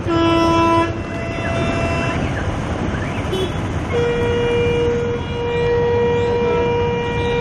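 Vehicle horns honking over steady street traffic noise: a short, loud honk right away, then a long held horn from about four seconds in.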